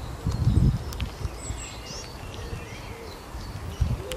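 Outdoor ambience with small songbirds chirping: short high calls repeating, and a quick sweeping call a little past the middle. A low rumble comes up about half a second in and again near the end.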